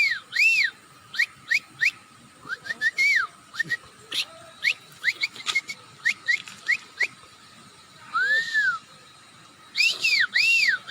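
A quick series of short, arched whistled chirps, bird-like, coming in irregular runs. About eight seconds in there is one longer, lower rising-and-falling whistle, and then a last quick run of chirps near the end.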